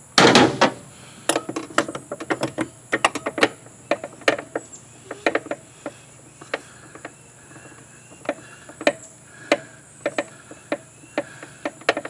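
A short burst of scraping right at the start, then irregular sharp clicks and taps of a hand tool working a small screw on an outboard motor.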